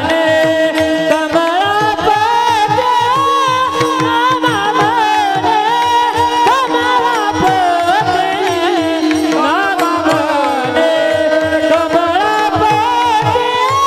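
Men's chorus singing a Marathi devotional kirtan tune in unison, keeping time on small brass hand cymbals (taal), over a steady held note and a quick drum beat.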